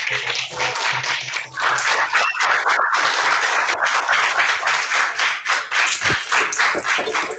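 Audience applauding, a dense crowd of hand claps that grows fuller and louder about a second and a half in.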